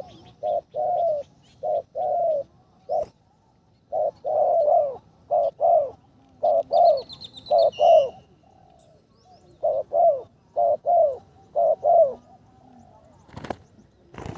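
Spotted dove cooing over and over, in clusters of short, falling coos with brief pauses between them. A short high chirp from another bird comes about halfway through, and a single click near the end.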